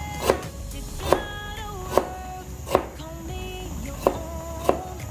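Kitchen knife slicing fresh ginger thinly and knocking on a cutting board: about six sharp knocks at slightly uneven intervals under a second apart, over background music.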